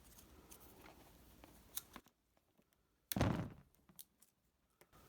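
Faint clicks and rustles of hands working a small wire splice and a roll of insulation tape, then one loud, heavy thump about three seconds in.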